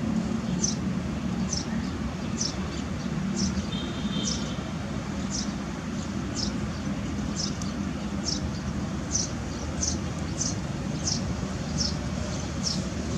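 A short high-pitched chirp repeating at a steady pace, roughly one a second, over a steady low hum.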